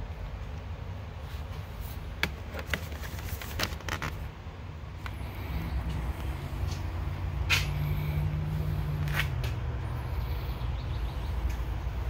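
A steady low rumble with an engine hum that swells from about halfway and fades again, like a vehicle passing, and a few sharp clicks and taps scattered through it.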